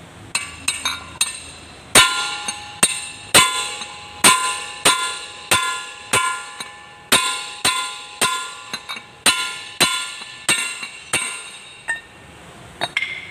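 Hammer blows on a steel drift bar held on the end of an L1-185 tractor's rear axle shaft, driving the shaft home. A few light taps, then about fifteen ringing metal-on-metal strikes, roughly one every two-thirds of a second, stopping about eleven seconds in.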